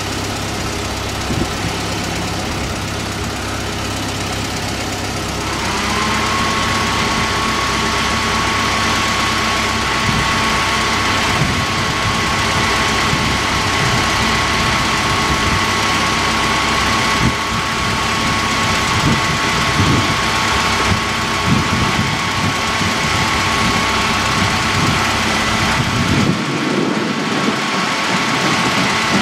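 Trains standing at a station platform: a steady engine idling with irregular low knocks, and a steady whine that comes in about five and a half seconds in and holds.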